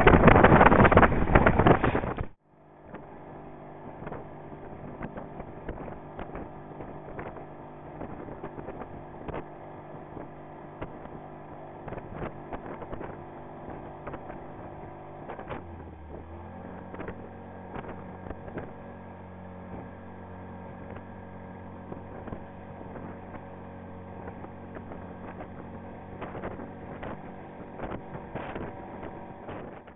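Wind buffeting the microphone for about two seconds, cutting off suddenly. Then a motorboat engine runs steadily with an even hum that steps down to a lower pitch about halfway through.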